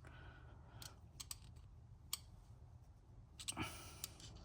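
A few faint, irregular clicks of a small flat-tip screwdriver tip against metal as it pushes the tapered washer down on a 6.0 Power Stroke diesel injector.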